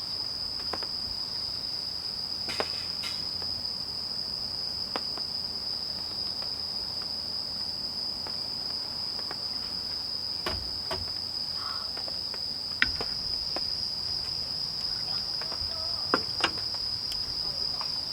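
Crickets chirring, a steady high continuous trill, with scattered light clicks and taps over it, the sharpest about two-thirds of the way through.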